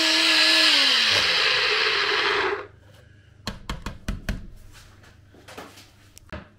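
Personal blender motor running at full speed, pureeing softened strawberries, its whine dropping in pitch about a second in before it cuts off suddenly. Then a few sharp clicks and knocks as the plastic cup is twisted off the motor base.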